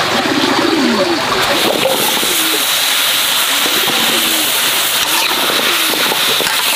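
Pork rib pieces sizzling in a hot wok over a wood fire, a steady hiss that grows stronger a couple of seconds in. Low cooing bird calls come through a few times.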